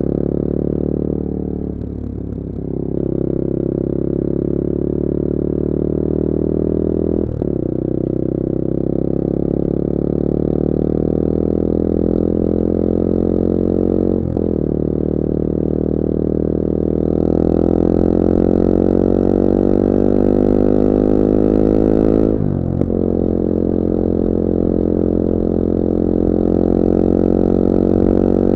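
Bullit Hero 250's CF Moto 250cc single-cylinder four-stroke engine pulling under way, its pitch climbing steadily and dropping back at each upshift: one shift about two seconds in, then about 7, 14 and 22 seconds in.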